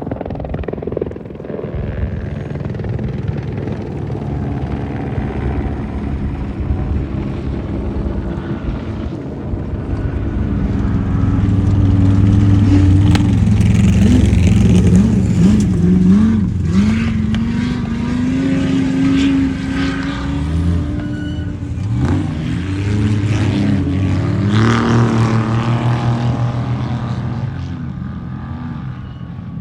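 Off-road race truck engine running hard, its revs climbing and dropping again and again. It is loudest in the middle of the stretch and again later on.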